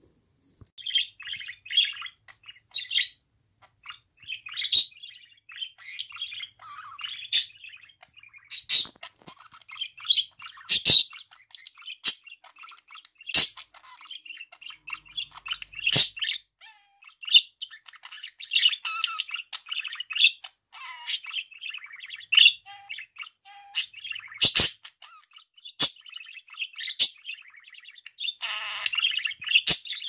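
Pet budgerigar chattering and warbling, with frequent sharp chirps.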